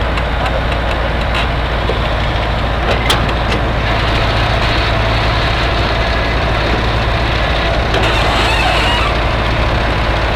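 Engine of a heavy machine running steadily, with a constant low hum and a few sharp clicks about three seconds in.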